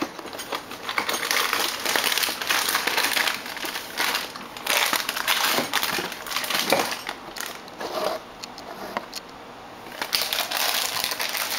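Packaging of a muffin mix crinkling and rustling as it is handled, in irregular bursts.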